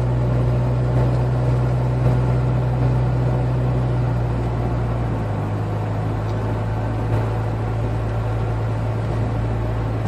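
Car engine and road noise heard from inside the cabin while driving: a steady low hum that drops a little in pitch about five seconds in as the engine speed eases off.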